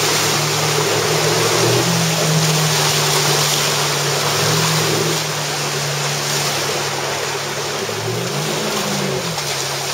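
A 115 hp four-stroke outboard motor pushing a pontoon boat at speed through choppy water, its steady hum rising briefly in pitch and falling back near the end, under a loud, steady rush of waves and water.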